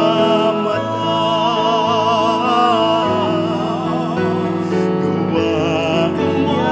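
Music: a singing voice with strong vibrato over sustained accompanying chords that change about every second.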